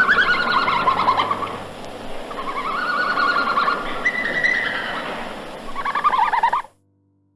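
Birds calling: wavering, trilled phrases repeated over a steady hiss, cutting off suddenly near the end.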